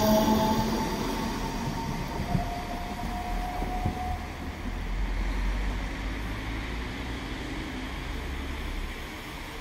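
DB class 426 electric multiple unit pulling away and moving off. A whine from its electric drive and a few sharp clicks fade over the first few seconds into a low rumble that dies away.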